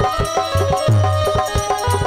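Instrumental devotional music, without singing: a harmonium and keyboard play a melody over the deep bass strokes and sharper slaps of a hand drum.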